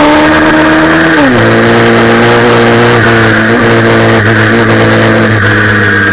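Pit bike's single-cylinder engine heard from on board at high revs, with wind rush on the microphone. The revs drop sharply about a second in, then hold fairly steady with two brief dips.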